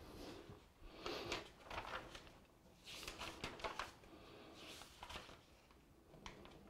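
Paper pages of an old bound register being turned and handled, a few short rustling bursts one after another.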